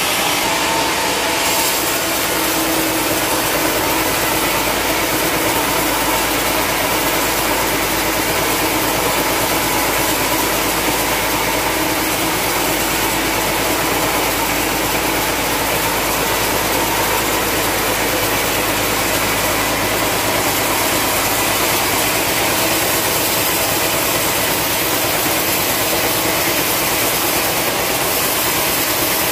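Band sawmill's blade cutting lengthwise through a long, dry hardwood log: a loud, steady sawing noise over the running machine, without a break.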